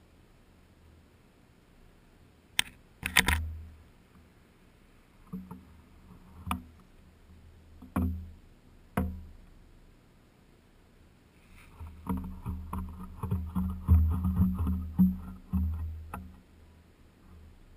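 A kitten pawing and bumping a GoPro HERO2 on a homemade ball-chain-gimbal steadicam, making knocks and rattles on the camera rig. There are single knocks every second or two, then a quick burst of tapping and rattling from about twelve seconds in that lasts some four seconds and is the loudest part.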